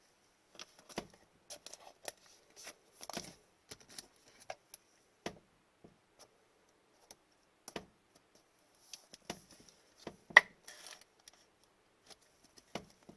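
Trading cards being handled and sorted by hand: scattered light taps, slides and rustles, with one sharper click about ten seconds in.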